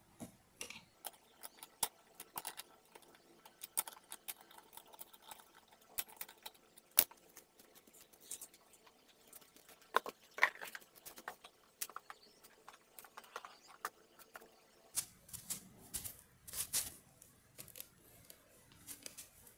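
Irregular light metallic clicks and clinks of a socket wrench working on an ATV wheel's lug nuts. A soft rustle of handling joins in near the end.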